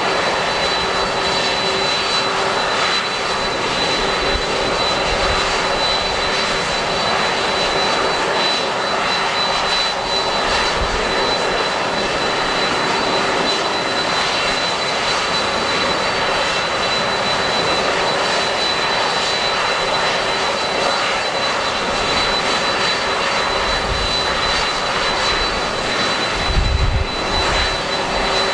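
Airliner's engines running steadily with a constant high whine, heard over an airport apron. Gusts of strong typhoon wind buffet the microphone at times, hardest about 26 seconds in.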